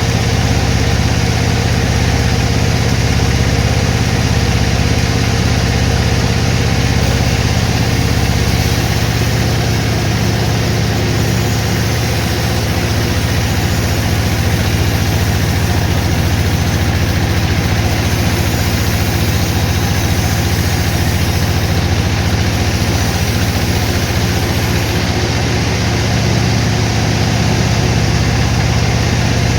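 Sawmill machinery running steadily: a loud, continuous low hum under a dense mechanical noise, with a higher hiss that strengthens from about a third of the way in until past the middle.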